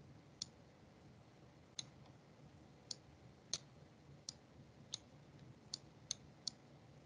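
Faint, sharp clicks, about nine of them at irregular intervals, over near-silent room tone: clicks of a mouse or pen input at a computer.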